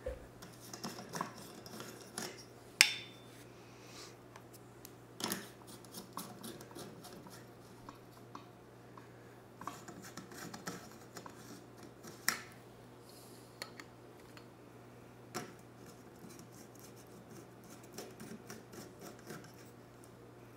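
Light bulbs being unscrewed from and screwed into the metal sockets of a ceiling fixture: irregular scraping and squeaking of the screw bases turning in the threads, with occasional sharp clicks and clinks of glass against metal, the loudest a little under 3 s in and just after 12 s in.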